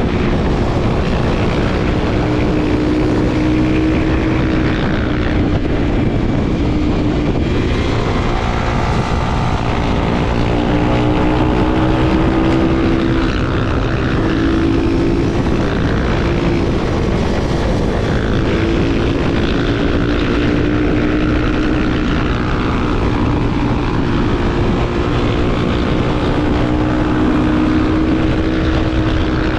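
Honda XR250 Tornado's single-cylinder four-stroke engine running under way, its pitch rising and falling as the rider accelerates and eases off, with a steep climb in revs about a third of the way in.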